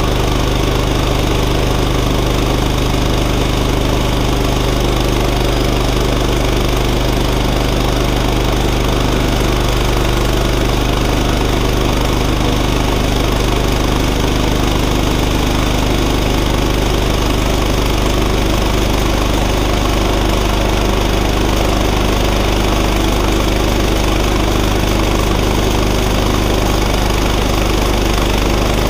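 Woodland Mills HM126 portable bandsaw mill's gas engine running steadily under load as the saw head is pushed along a Douglas fir log, sawing a board.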